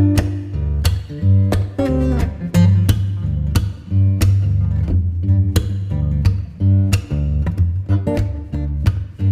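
Background music: a plucked acoustic guitar playing at a steady, regular beat over a strong bass line.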